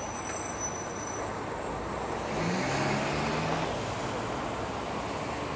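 Road traffic on a multi-lane city street: a steady hum of passing cars, with one vehicle's engine coming through a little louder about halfway through.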